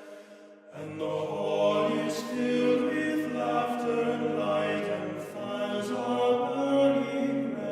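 Music with singing voices holding slow, sustained notes, briefly dropping away near the start.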